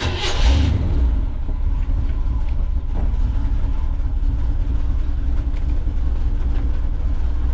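1979 GMC Vandura G25's engine starting, catching with a brief noisy burst, then running on as a steady low rumble at idle.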